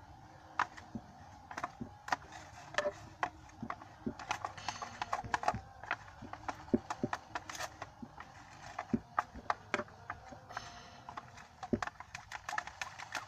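Slime being stirred in a container as it sets: many irregular clicks and taps from the stirring utensil against the container.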